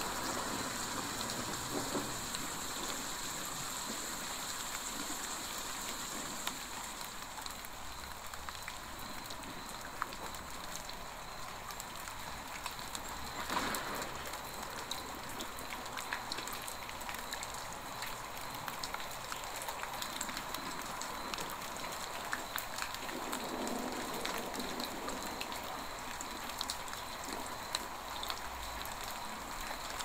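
Steady rain falling, with many small individual drop ticks scattered through it and a brief louder burst about 13 seconds in.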